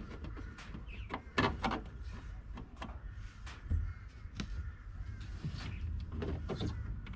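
Scattered clicks and knocks from hands handling wiring, hoses and fittings under a switch panel in an aluminium boat, over a steady low hum.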